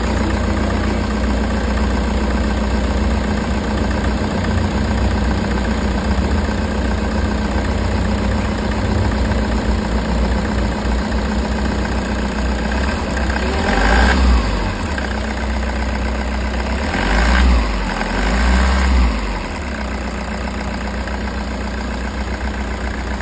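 Toyota HiAce engine idling steadily, revved up briefly about two-thirds of the way in and twice more soon after, then settling back to idle.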